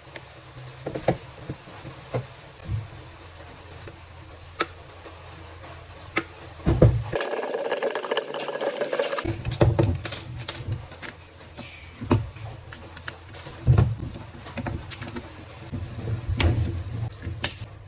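Irregular clicks and knocks, as of small parts being handled, over a steady low hum. A stretch of hissing noise lasts about two seconds, starting about seven seconds in.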